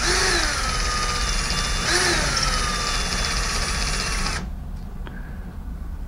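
Cordless drill motor whining as it bores a hole into drywall for a wall anchor. Its pitch sags at the start and again about two seconds in, and the drill stops about four and a half seconds in.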